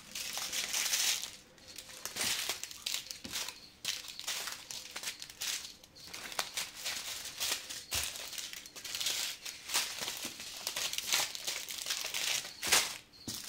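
Small plastic bags of diamond painting drills crinkling as they are handled and sorted by hand, in irregular bursts, loudest near the end.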